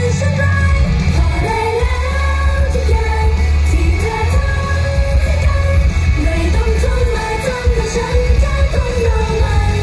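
Idol-pop song performed live: women's voices singing the melody into microphones over loud pop music with a strong bass line, played through the stage sound system.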